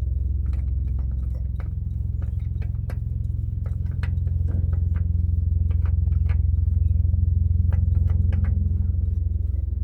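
Steady low rumble throughout, with scattered small clicks and taps of hands threading a new oil filter onto a car engine by hand.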